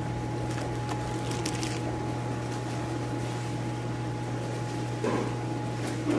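Steady hum and bubbling of aquarium air pumps and filters in a fish room. Plastic fish bags crinkle briefly in the first couple of seconds and again about five seconds in.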